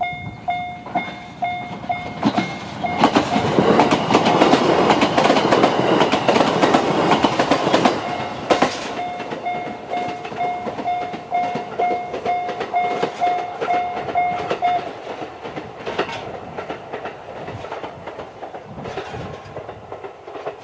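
Japanese level-crossing electronic alarm sounding the JR standard tone, striking about twice a second, with its high-pitched tone dropping out. An E129 series electric train passes through the crossing from about 2.5 to 9 s, its wheels clacking over the rail joints. The alarm stops about 15 s in.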